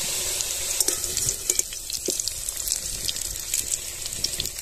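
Hot oil sizzling in a kadai as fried potato chunks are drained in a wire mesh strainer, with a few light clicks.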